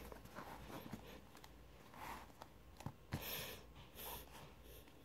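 Faint breathing close to the microphone, a few short breaths, with a couple of light clicks and taps from fingers handling a tablet in its plastic case.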